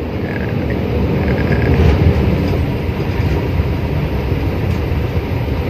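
Truck engine and tyre rumble heard from inside the cab while driving along the road: a steady, loud low rumble with a fine rattling flutter.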